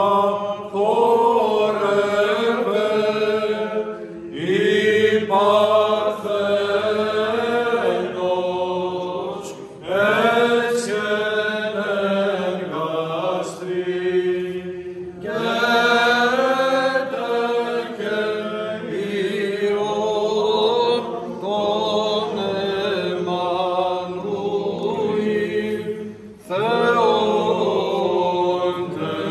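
Byzantine chant from men's voices: a melody sung over a steady held low note, in phrases with brief breaks every few seconds.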